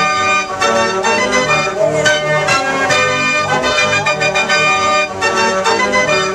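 Organ music: a lively tune of held chords over a repeating bass line with a steady beat.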